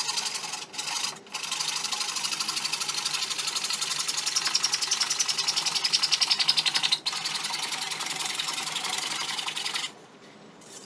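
Handsaw cutting through a wooden Euro pallet board in fast, steady back-and-forth strokes. There are short breaks about a second in, and the sawing stops near the end.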